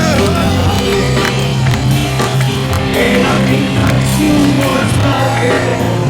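Rock music with a steady, dense band sound and a strong bass line.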